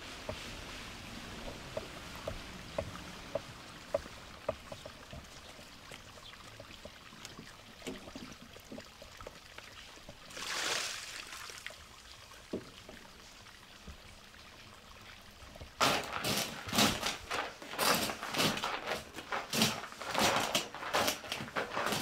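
Shallow creek water trickling, with a short pouring splash about ten seconds in as a plastic crate is dipped into it. From about sixteen seconds a quick run of loud knocks follows, about two a second.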